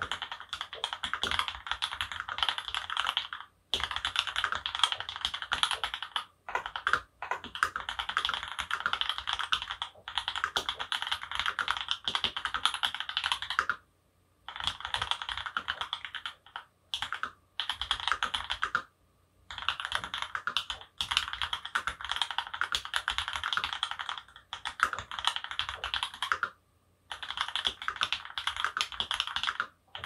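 Fast typing on an Archon RE:AL Platinum FX mechanical keyboard with an aluminum plate and 43 Studio OP Black switches lubed with Krytox 205g0, giving a dense run of keystrokes. The typing comes in stretches of several seconds broken by brief pauses.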